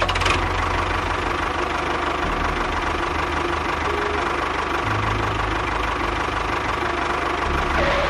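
Tractor engine running steadily with a low, fast chugging knock.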